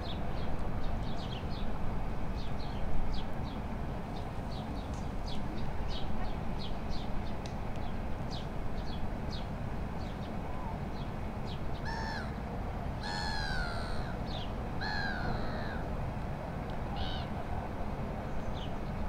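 Birds calling over a steady low rumble: many short, high, falling chirps come one or two a second through the first half, then turn sparse. About twelve to sixteen seconds in, a larger bird gives a few louder, longer, harsh calls.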